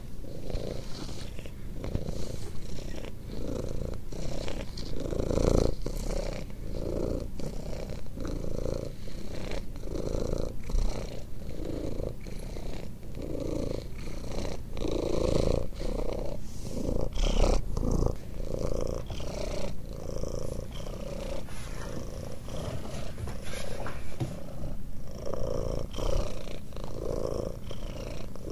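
Ginger Cornish Rex cat purring loudly while having its head scratched. The purr swells and fades in a steady rhythm, a little more than once a second.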